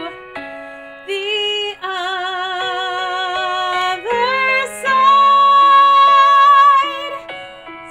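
A woman singing the closing phrase of a ballad in long held notes with vibrato, over a karaoke backing track. The loudest note is held for about two seconds in the second half.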